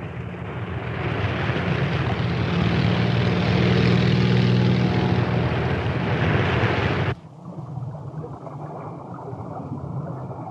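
Propeller aircraft engine sound effect, swelling louder, then cutting off abruptly about seven seconds in to a quieter low, steady hum.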